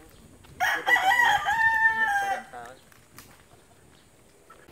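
A rooster crowing once, a single drawn-out call of about two seconds that starts about half a second in and drops off at the end.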